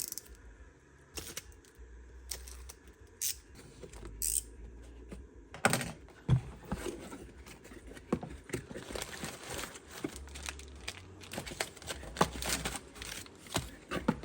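Packaging of an ARP head stud kit being opened and rummaged through: crinkling and tearing with scattered light clicks and knocks of parts being handled, busier in the second half.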